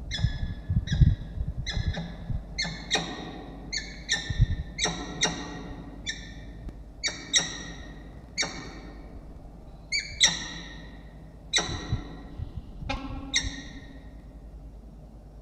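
Peregrine falcons calling during pair-bonding: a long run of short, harsh, repeated calls, about one every half-second, that stops shortly before the end. There are a few low bumps in the first second.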